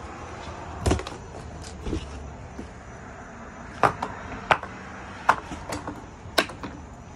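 Plastic packing straps being cut with scissors and pulled off cardboard boxes, with the cardboard edge protectors handled. There are a couple of dull thuds early on, then a series of about five sharp snaps and clicks in the second half.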